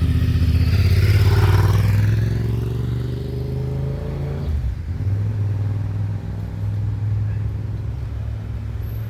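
Road traffic at a city intersection: a motor vehicle passes and accelerates away, its engine pitch rising for about four seconds with tyre noise loudest near the start, then a steady low engine rumble from traffic waiting or idling.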